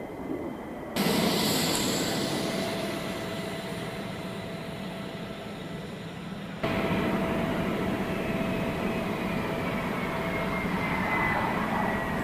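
F-35A Lightning II jet engine running with a steady roar and a thin whine. The sound changes abruptly about a second in and again past halfway. In the later part a high whine falls slowly in pitch.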